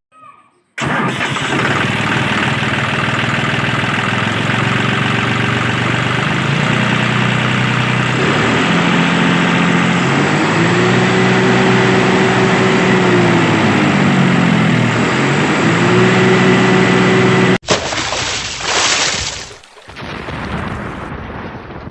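Vehicle engine running steadily, its pitch rising and falling twice as it revs, then cutting off suddenly; a rushing noise follows near the end.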